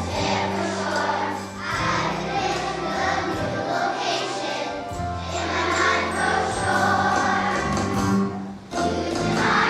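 Children's choir singing a song with instrumental accompaniment, held bass notes changing every second or two under the voices, with a brief break near the end.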